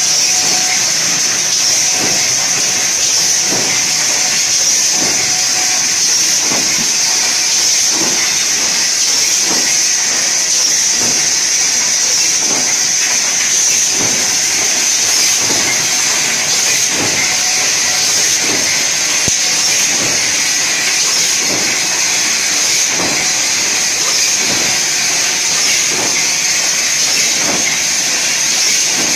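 Blister packing machine running: a steady high hiss with a regular mechanical knocking from its stations, a little more than once a second.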